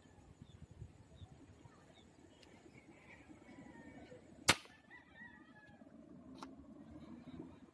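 A fishing airgun firing once, a single sharp crack about four and a half seconds in, followed by a much fainter click about two seconds later.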